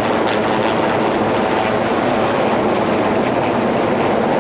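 Rescue helicopter hovering close overhead: steady, loud rotor and engine noise with rotor downwash.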